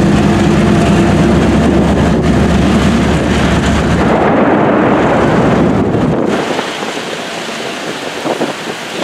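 Diesel train rumbling past loudly with its engines droning. The sound drops away suddenly about six seconds in, leaving rain and wind on the microphone.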